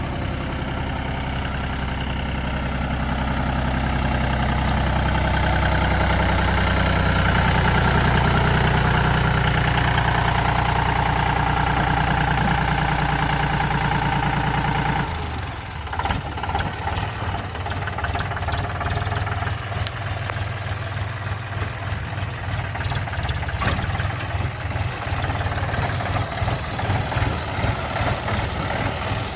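Heavy diesel engines of earth-moving machinery running. The engine note swells and holds strong for several seconds, then changes abruptly about halfway through to a choppier, more uneven engine sound.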